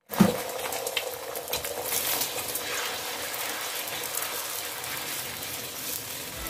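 Eggs frying in hot oil in a wok, sizzling steadily, with small clicks and scrapes of wooden chopsticks stirring them and a sharp knock right at the start.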